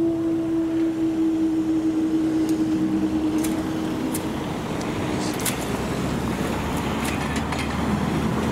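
Level-crossing barrier mechanism humming steadily as the barrier booms rise, cutting off about four and a half seconds in once they are up. Then cars pull away over the crossing, with one passing close near the end.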